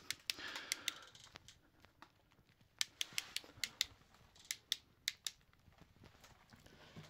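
Faint, sharp clicks and ticks at irregular intervals, bunched together around the middle, over a quiet hiss of room tone.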